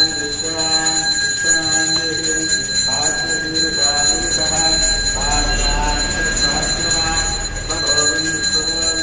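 Temple bell ringing continuously, with a man chanting over it in steady, drawn-out phrases.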